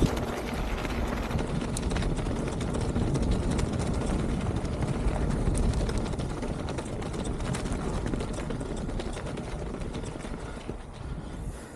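Mountain bike rolling down a rough singletrack trail: continuous tyre noise over dirt and rock with many small clicks and rattles from the bike, growing quieter over the second half.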